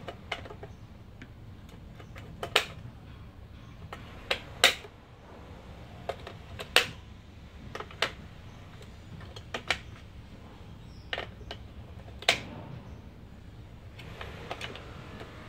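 AA batteries being pressed one by one into the plastic battery compartment of a Brother PT-P750W label printer: a series of sharp clicks and knocks, irregularly spaced a second or two apart.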